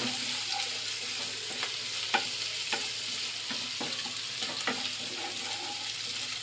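Grated ginger and crushed garlic sizzling in ghee and butter in a coated kadhai, with a steady frying hiss. A spatula stirs and scrapes through it, making short clicks against the pan every half second or so.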